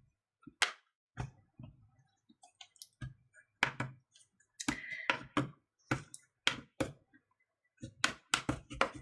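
Plastic retaining clips of a tablet's back cover clicking and snapping as it is pried open with a plastic opening tool: a string of sharp clicks, about one or two a second, coming quicker near the end.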